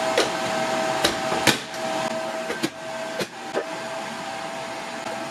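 Nicer Dicer Exclusive pressed down on stacked zucchini slices, cutting them through the 7 mm grid insert: about six sharp plastic knocks as the lid hits home. Under it runs the steady fan hum and thin whine of the DeLonghi Multifry cooking.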